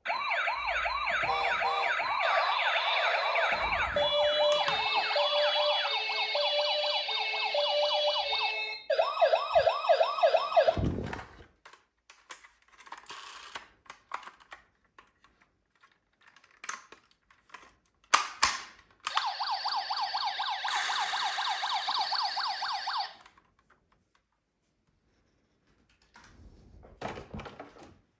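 Electronic sound-effect sirens of toy ambulances, played in three loud bursts of fast wailing sweeps, the first with a two-note tone over it. The second burst drops sharply in pitch as it cuts out. Small clicks and taps sound between the bursts.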